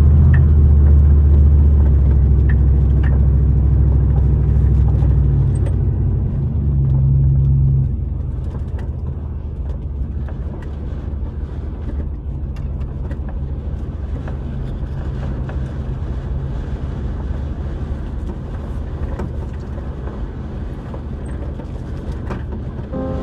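Vehicle engine running with a steady low drone that drops in level about eight seconds in.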